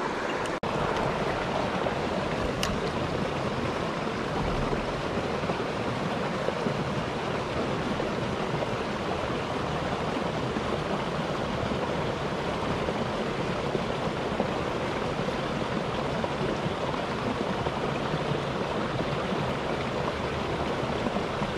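Shallow river rushing steadily over stones.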